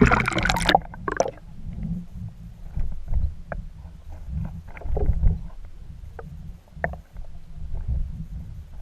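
A splash as the magnet rig with a GoPro attached enters the water, then muffled underwater rumbling with scattered knocks and clicks as the rig hangs and drags in the water.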